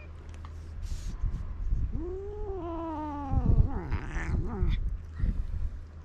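A white stray cat gives one long, drawn-out yowl about two seconds in, rising then falling in pitch, followed by a short breathy hiss: the cries of an irritated cat.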